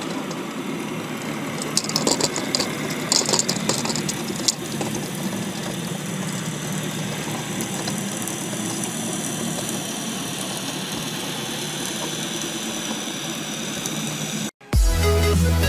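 Steady low rumble picked up by an underwater camera, with a cluster of sharp clicks and crackles about two to four and a half seconds in. Near the end it cuts off abruptly and electronic music with a heavy beat begins.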